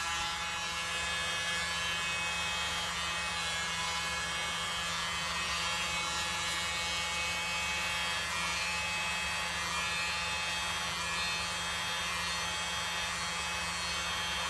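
Small handheld electric blower running steadily with an even motor hum, blowing air through its nozzle to push poured acrylic paint outward across a tile.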